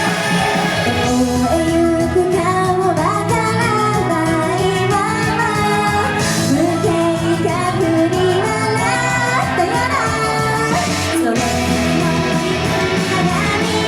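A live Japanese idol-pop song: female voices singing a melody over a loud, continuous pop-rock backing track.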